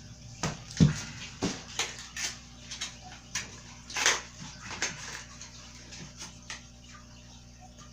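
Irregular clunks, clicks and rustles of toddler-bike parts and cardboard packaging being handled while a bike is unpacked from its box, the loudest a low thump just under a second in.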